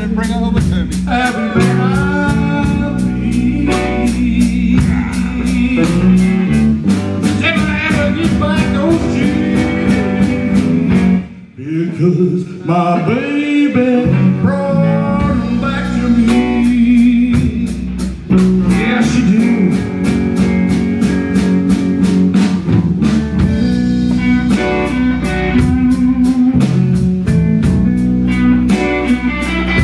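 Live blues band playing: a male singer over electric bass, electric guitars and drums. About eleven seconds in the band stops for a moment and the voice carries alone for a couple of seconds before the full band comes back in.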